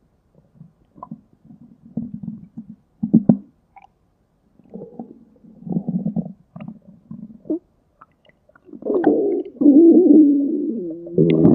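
Human stomach growling: a run of short, low gurgles, then about three-quarters of the way through a longer, louder rumble with a wavering pitch.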